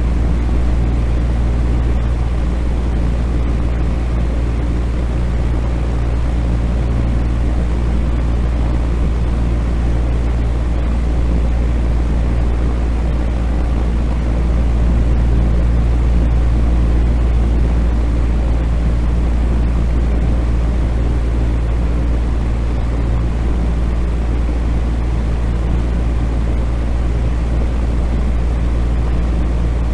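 Fan running steadily: a constant low hum with even air noise that does not change.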